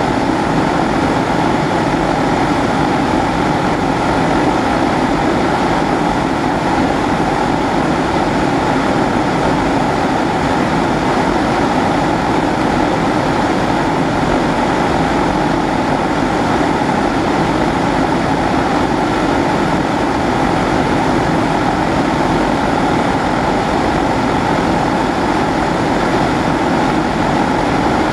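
Pressurised kerosene stove (Primus-type babour) burner burning with a steady, even roar that does not change.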